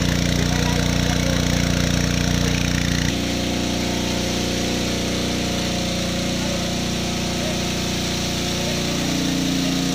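Honda GX160 single-cylinder four-stroke engine running a WB30X water pump steadily at working speed, with water gushing from the discharge hose. The sound shifts abruptly and becomes slightly quieter about three seconds in.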